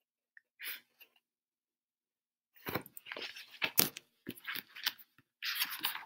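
Rustling with a run of clicks and light knocks from a picture book and things on a desk being handled, starting a couple of seconds in, with one sharper click about four seconds in.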